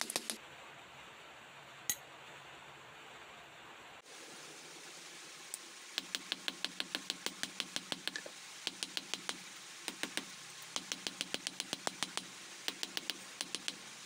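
Hammer blows on a red-hot steel knife blank lying on an anvil, drawing out and flattening the blade's edge. There are a few blows at the start and a single blow a couple of seconds in, then a long pause, then runs of rapid, evenly spaced blows, about five a second, broken by short stops.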